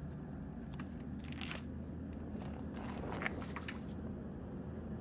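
Steady low hum, with two short bursts of crunching, scraping noise about a second in and again around three seconds in.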